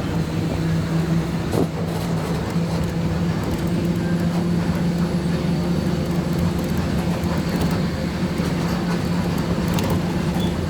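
A motor vehicle's engine running steadily with road noise, a constant low hum.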